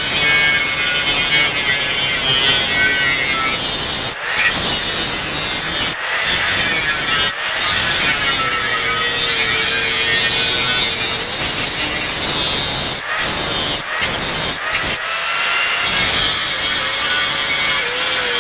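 Angle grinder with a thin cutoff wheel cutting a slot into a steel plate: a continuous harsh grinding hiss, broken a few times by brief dips as the wheel lifts from the cut.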